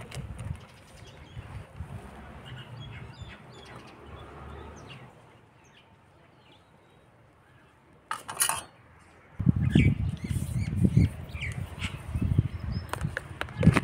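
Faint bird chirps over low background rumble. A brief sharp noise comes about eight seconds in, followed by heavier, louder low rumbling from about nine seconds on.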